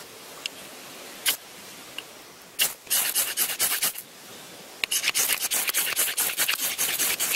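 Ferro rod scraped hard with a striker to throw sparks into a tinder bundle: a few single scrapes, then two runs of quick rasping strokes, the second lasting about two and a half seconds at roughly six strokes a second.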